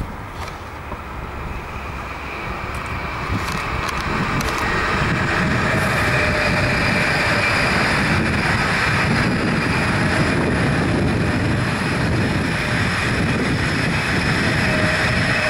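SBB ICN electric tilting train passing at speed: the rush of wheels on rail grows over the first few seconds, then holds steady and loud, with a steady high-pitched whine over it.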